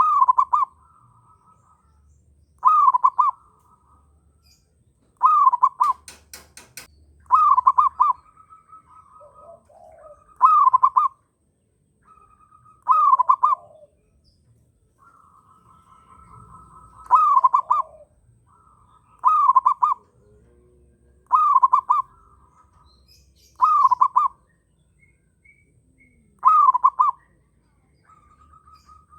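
Zebra dove (perkutut) cooing, its usual call repeated about eleven times, one phrase every two to three seconds; the cooing is the sign of a male in strong breeding condition. Between phrases a fainter, steady purring trill at about the same pitch, and a short run of clicks about six seconds in.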